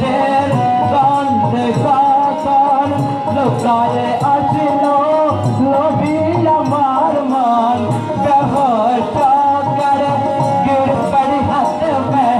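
A boy singing a melody into a microphone through a PA, accompanied by tabla and a keyboard, with a steady drum rhythm under the voice.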